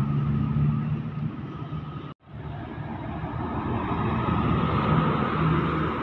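Road traffic: engines of passing vehicles fading, a brief dropout about two seconds in, then a heavy box truck driving past close by, its engine and tyre noise swelling and easing.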